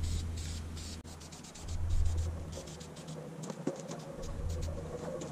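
Aerosol spray-paint can hissing in short bursts over a low rumble.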